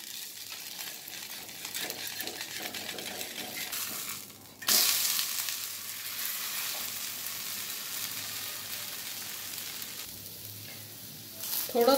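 Wheat-flour batter pancake sizzling in mustard oil on a hot iron tawa. A little over four seconds in the sizzle dips briefly, then jumps loud as the pancake is flipped and its raw side meets the hot oil, and it eases back to a steady fry.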